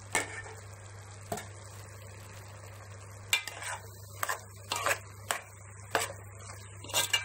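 A spoon stirring chopped snake gourd in an aluminium pot, with irregular scrapes and knocks against the pot, most of them from about three seconds in. A steady low hum runs underneath.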